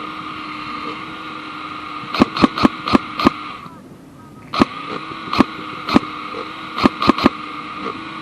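Airsoft guns firing: about a dozen sharp single shots in quick irregular groups. Under them runs a steady whining hum, which cuts out for about a second in the middle.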